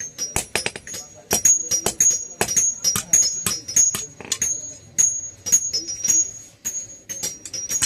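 Hand-forging hammer blows on iron over an anvil: quick, uneven strikes, several a second, each with a high metallic ring.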